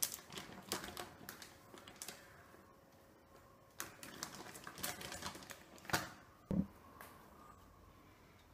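A thin clear plastic bag crinkling and crackling as it is handled and shaken, in two spells of quick crisp crackles. About six and a half seconds in comes a single dull thud, then quiet.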